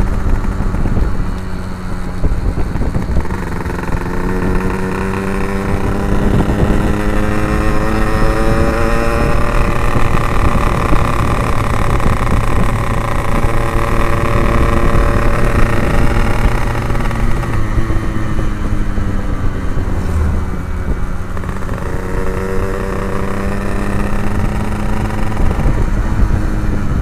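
Two-stroke Yamaha motorcycle with an Abbox C20 aftermarket exhaust riding under way. The engine's pitch climbs and falls as the throttle is worked, easing off around the middle and climbing again near the end, with wind rumble on the microphone.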